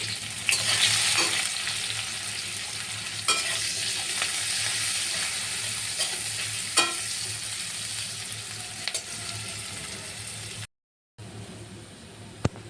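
Food frying and sizzling in hot oil in a pan while being stirred, with a few sharp clicks. The sizzle stops abruptly near the end.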